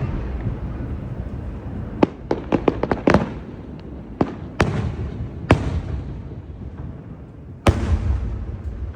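Fireworks display. A rumbling tail from a big shell burst, then a quick run of crackling pops about two to three seconds in, a few single sharp bangs, and a loud bang near the end that rumbles on afterwards.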